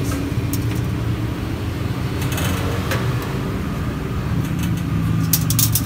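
Steady low road-vehicle engine hum, with a slightly higher-pitched line joining about four seconds in. A quick cluster of sharp clicks comes near the end.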